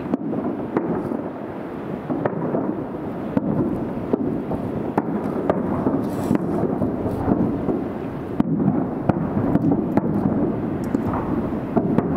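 Aerial fireworks shells bursting one after another: overlapping booms blurring into a steady rumble, with frequent sharp cracks throughout.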